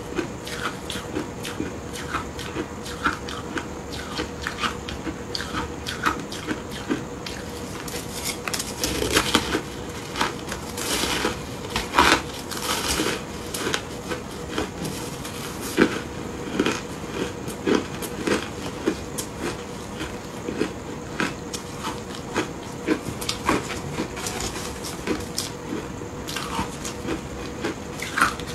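Chewing and crunching of frozen ice chunks coated in matcha and milk powder: a steady run of crisp crunches, with louder stretches of crunching about a third of the way in and again a little before the middle.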